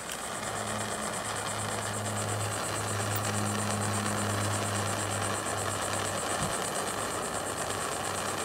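Heat gun blowing steadily, its fan motor humming under an even hiss of air, while it heats a plastic bumper to soften it.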